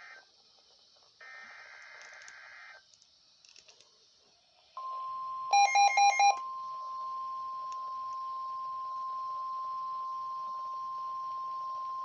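NOAA Weather Radio Emergency Alert System activation: a screechy two-tone SAME digital header burst about a second in, then about five seconds in the steady single-pitch 1050 Hz warning alarm tone, the signal of a warning broadcast. Four loud short beeps sound over the tone just after it starts.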